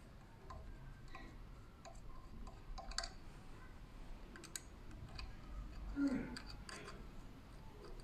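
Scattered small metal clicks and clinks as the blade, gear and plate of an electric pruning shear's cutting head are handled and lifted out by hand. A brief louder, lower sound comes about six seconds in.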